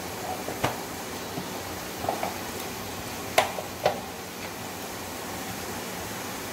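Sliced taro roots and cumin seeds frying in hot oil in a pan: a steady sizzle, with a few sharp pops, the loudest two about half a second apart a little past the middle.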